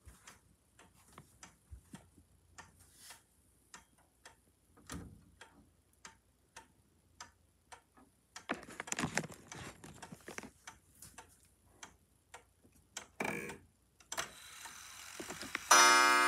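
Parliament 31-day chime wall clock ticking steadily, a little under two ticks a second, with a stretch of rustling about halfway through. Near the end the movement whirs briefly, then a loud chime note rings out and slowly fades: the clock is starting to chime the hour.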